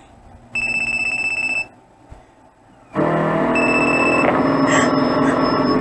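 Mobile phone ringing from a horror film's soundtrack: a trilling electronic ring in two bursts, a short one about half a second in and a longer one from about three seconds in, the second with steadier, lower tones beneath it.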